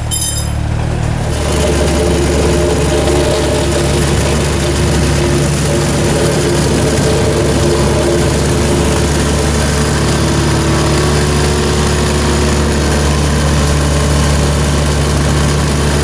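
Heavy walk-behind vibratory plate compactor running and compacting loose gravel: a steady, loud, deep engine drone with its vibration.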